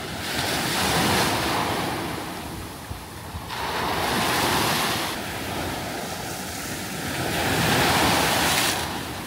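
Sea waves breaking and washing up a sandy beach, the surf swelling and fading three times.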